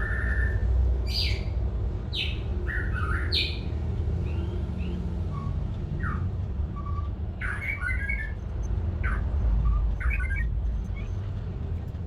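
Birds calling: a scatter of short squawks and chirps, some sliding in pitch, over a steady low hum.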